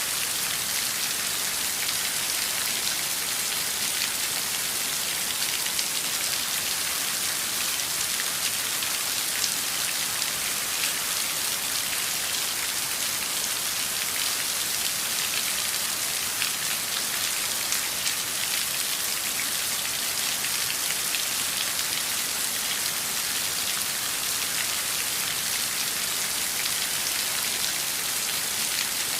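Steady downpour of rain: a dense, even hiss of falling drops, with individual drops ticking through it, unchanging throughout.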